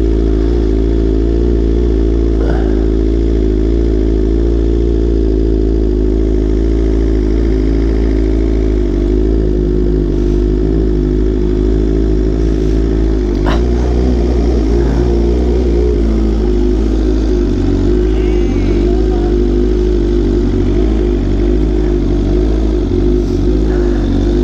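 Superbike engine running at low revs, a steady even engine note as the bike idles and rolls slowly. A single sharp click cuts in about halfway through.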